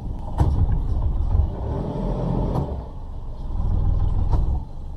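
Sailboat's engine running at low speed while manoeuvring to moor, a steady low rumble that swells louder twice, about half a second in and again around four seconds in.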